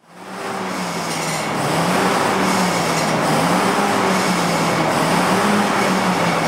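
Concept2 Model B rowing machine's flywheel fan whooshing steadily under a rower, with a low hum that rises and falls.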